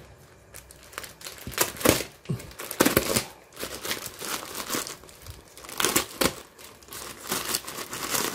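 Plastic packaging crinkling and rustling as it is handled, in irregular bursts, loudest about two to three seconds in.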